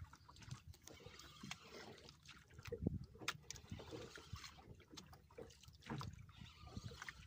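Faint, irregular knocks and clicks on a small fishing boat, over low water noise.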